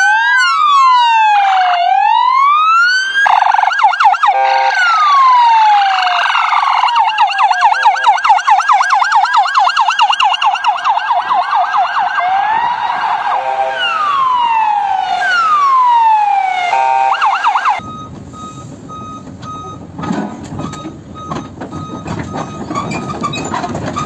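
Several vehicle sirens sounding together on a convoy of forestry-service pickups with roof light bars, mixing slow wails with fast yelps of about four sweeps a second. They cut off suddenly near the end, leaving a quieter rumble of engine noise.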